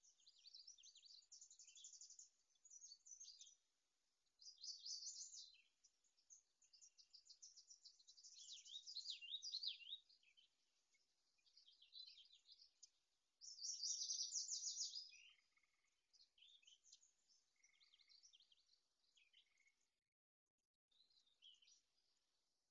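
Faint songbirds singing, a dense chorus of quick high chirps and trills that comes and goes, with the sound dropping out completely for about a second near the end.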